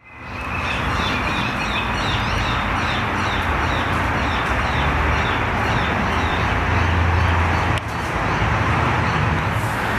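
Outdoor ambience fading in: birds chirping over and over above a steady hum of distant traffic.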